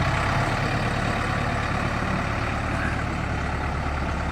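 Heavy diesel engine of farm or earthmoving machinery running steadily.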